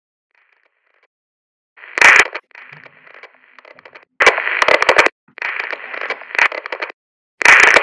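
Harsh, loud bursts of static and digital glitch noise, starting about two seconds in and cutting in and out with sharp crackles: the sound of a corrupted video-call feed.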